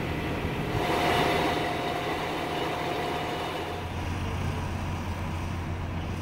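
Steady motor-vehicle engine noise: a faint whine in the first few seconds, and a low steady engine hum from about four seconds in.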